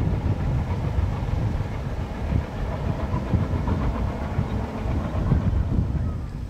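Express train running past at a distance: a low, steady rumble of the moving coaches that fades near the end.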